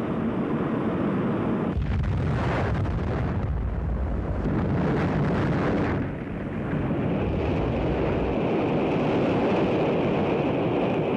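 Atlas-Centaur rocket exploding in flight: a long, loud rumbling blast that swells about two seconds in, eases briefly near six seconds, and rumbles on.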